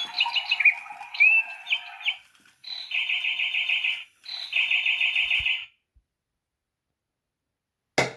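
Sound-activated electronic toy bird playing recorded birdsong: a varied chirping warble, then two rapid trills, stopping about halfway through. A single sharp click comes near the end.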